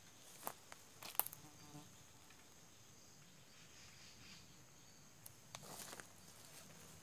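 Faint outdoor ambience of insects droning steadily at a high pitch, broken by a few sharp clicks about a second in and a brief rustle near the end.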